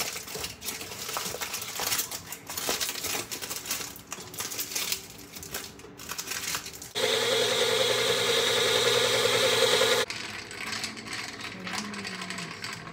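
Clinks and knocks of glassware and utensils being handled, then a kitchen blender runs for about three seconds, switching on and off abruptly, followed by more light clinking.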